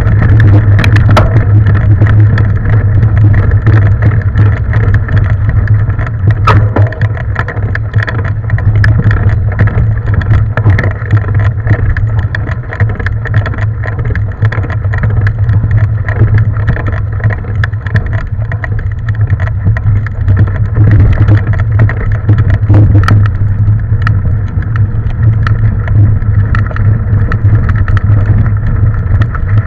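Mountain bike riding on a trail, heard up close: a steady low rumble with frequent rattling clicks and knocks from the bike over rough ground.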